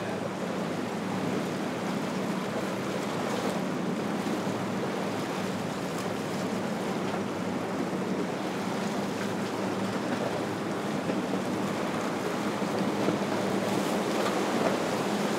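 Steady wash of ocean waves and surf, with a faint low boat-engine drone underneath, a little louder near the end.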